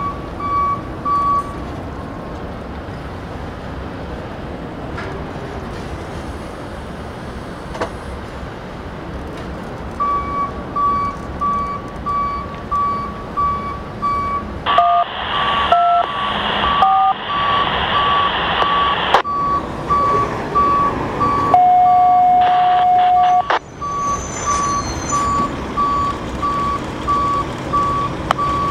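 A vehicle backup alarm beeping about twice a second, one pure high beep. It stops briefly near the start and comes back about a third of the way in. Around the middle a hiss with short tones breaks in, then a single steady tone sounds for about two seconds, the loudest thing here.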